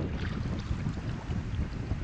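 Wind buffeting the microphone: an uneven low rumble over the lapping of choppy water.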